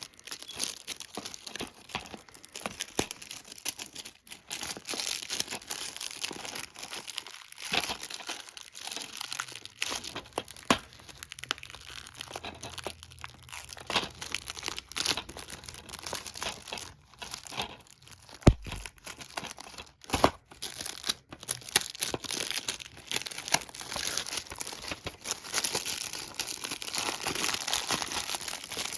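Plastic shrink-wrap being peeled and torn off a DVD case: steady crinkling and tearing, with two sharp knocks a little past the middle, about two seconds apart.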